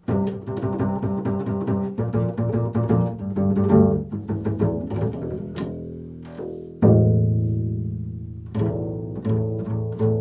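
Solo upright double bass played pizzicato: a run of plucked low notes, then one strong note about seven seconds in left to ring and fade, followed by a few more plucked notes.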